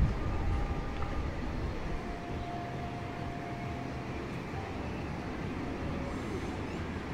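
Outdoor ambience: wind buffeting the microphone over a steady background wash, heaviest in the first second or two, with faint distant voices.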